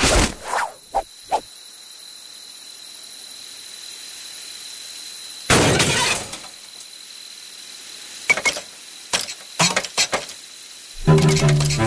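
Sound effects: a sharp click at the start and two small clicks soon after, one loud, longer crash about five and a half seconds in, then a quick run of sharp clicks, over a faint steady high tone and hiss. Music comes in near the end.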